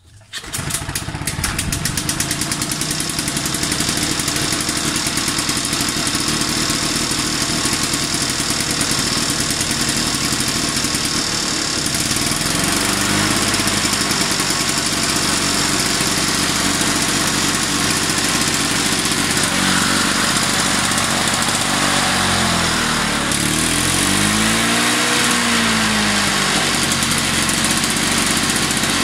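Victa two-stroke lawnmower engine, its carburettor freshly rebuilt, firing up and then running steadily.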